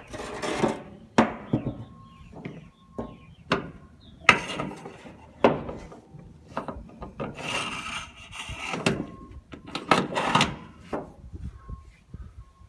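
Irregular scraping and rubbing strokes with several sharp knocks, hand work on the outboard's steering hardware. Birds chirp faintly in the background.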